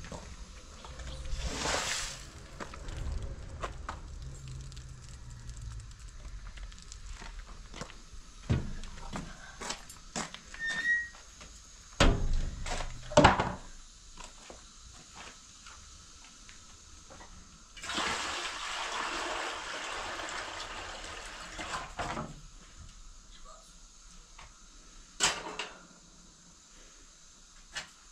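Water splashing as a plastic basin is emptied about two seconds in, and a run of water pouring for about four seconds past the middle. In between come sharp knocks and clatters of household things being handled, the loudest sounds, with one more knock near the end.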